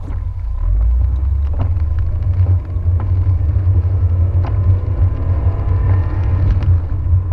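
Car driving on a rain-wet road, heard from inside the cabin: a steady low rumble of engine and tyres with a few sharp clicks, and a faint whine rising in pitch in the second half.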